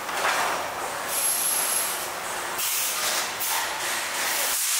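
PET plastic thermoforming machine running, a steady mechanical noise with several surges of hissing in the second half and a brief thin high whistle about a second in.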